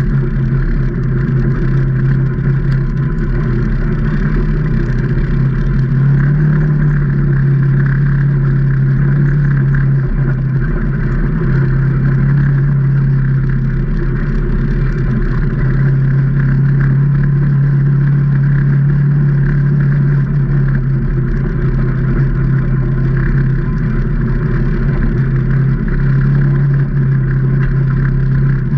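2019 Can-Am Maverick Trail 800 side-by-side's V-twin engine running under way at a fairly steady pitch, with only small rises and dips in engine speed.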